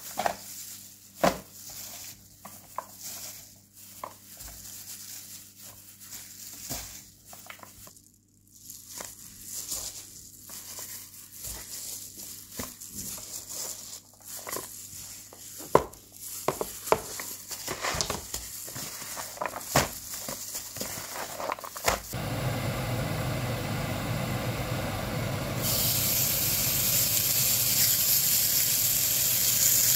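Clicks and rustles of plastic-gloved hands handling raw veal fillet and a bowl. About three quarters of the way in, a steady rushing noise begins, and a few seconds later the veal laid on a hot ridged cast-iron grill pan starts sizzling loudly and steadily.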